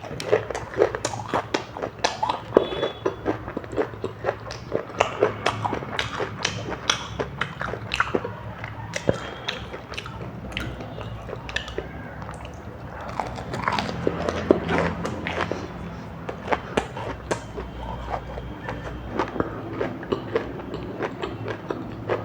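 Close-miked mukbang eating sounds: steady chewing and biting, with a dense run of short wet clicks and smacks.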